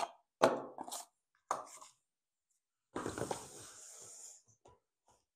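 Small cardboard box being opened and its contents taken out by hand: a few sharp knocks and scrapes in the first two seconds, then about a second and a half of packaging rustling around three seconds in, with a couple of faint clicks near the end.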